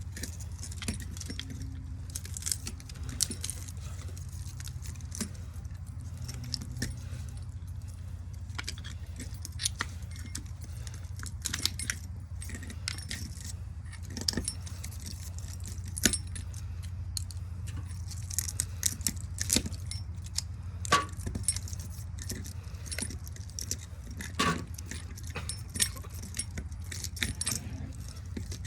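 Irregular metallic clinks, taps and scrapes of hand tools against the metal and copper parts of a ceiling fan motor being stripped of its copper winding, over a steady low hum.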